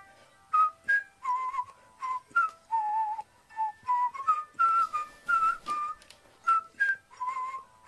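Background music: a whistled melody of short, separate notes, about two to three a second.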